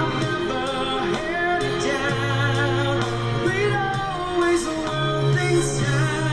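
A man singing a slow pop ballad into a handheld microphone over a karaoke backing track, with vibrato on the held notes.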